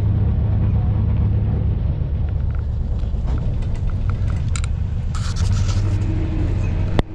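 Boat engine running steadily as the boat moves along the canal, a loud, even low drone, with a few brief higher crackles a little over halfway through. It cuts off suddenly near the end.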